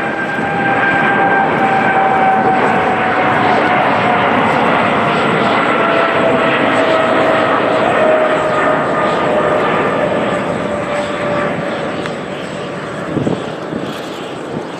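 Boeing 777-300ER's GE90-115B turbofans at takeoff power through the takeoff roll and liftoff: a loud jet roar with a whine that falls slowly in pitch as the airliner passes, easing off near the end. A brief thump about thirteen seconds in.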